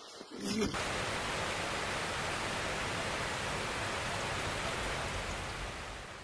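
A steady, even rushing hiss, like fast water or heavy rain, that cuts in abruptly under a second in and fades away near the end.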